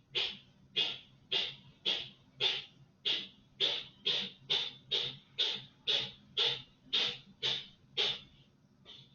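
A small pet sneezing in a long, rapid series, about two short sharp sneezes a second, stopping shortly before the end.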